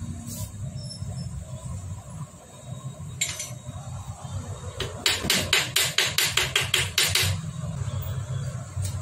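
A quick run of about a dozen sharp metallic taps on a Hero Splendor Plus engine being assembled, about five a second for two seconds, with a couple of single taps before it. A low steady hum lies underneath.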